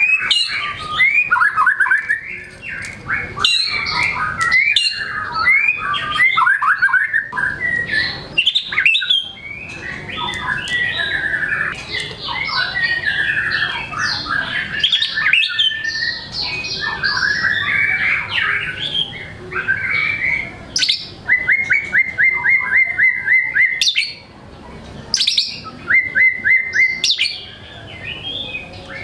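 White-rumped shama (murai batu) singing without a break, reeling off a long string of varied phrases and mimicked notes from its repertoire. Twice near the end it delivers a quick run of evenly repeated notes.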